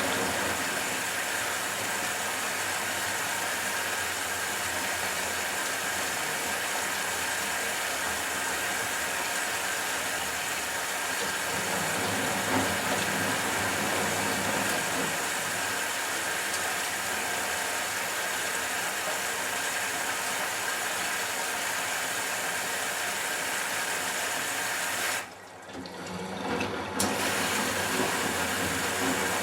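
Matura Autostatic 850 washing machine running a wash programme, with a steady rush of water. The rush cuts out suddenly about 25 seconds in and comes back about two seconds later.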